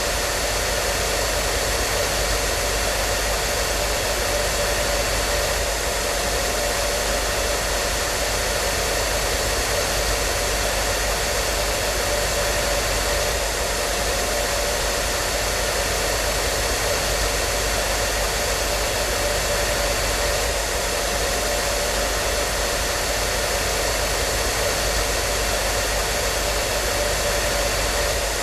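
Hair dryer running steadily: an even rush of fan and airflow noise with a constant motor hum and whine.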